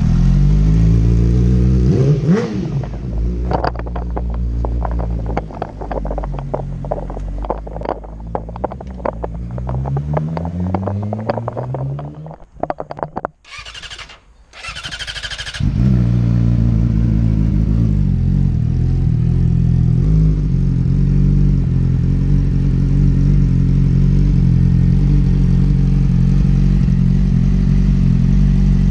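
Yamaha R6 inline-four through a Graves full exhaust: revved once early, then running with many sharp cracks and pops as the revs fall. About halfway it goes quiet, the starter whirs in two short bursts, and the engine catches and idles steadily.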